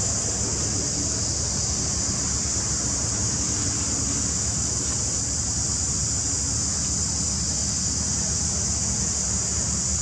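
Steady background noise: an even, high-pitched hiss with a low rumble beneath it, unchanging throughout, with no distinct events.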